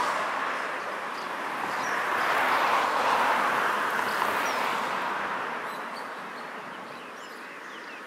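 Outdoor riverside ambience: a steady rushing noise that swells about two to four seconds in and then fades, with short, high chirps from small birds scattered through it.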